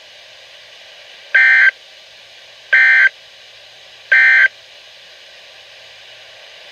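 NOAA Weather Radio SAME end-of-message signal: three short bursts of digital data tones about 1.4 seconds apart over steady radio hiss, marking the end of the alert.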